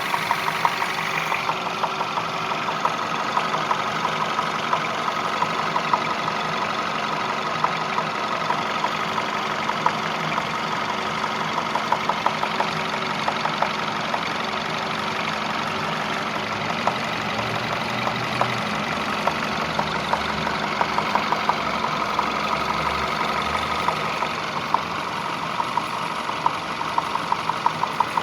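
Peugeot 508's 1.6 THP turbocharged four-cylinder petrol engine idling steadily, with a knocking sound in the engine: sharp knocks stand out over the running.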